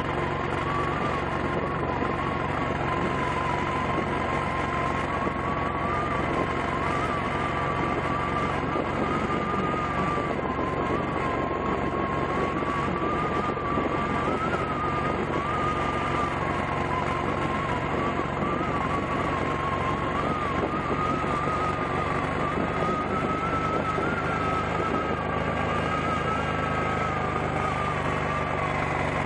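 Motorcycle running steadily on the move, recorded from the rider's head-worn Google Glass, with a high whine that wavers slowly up and down in pitch.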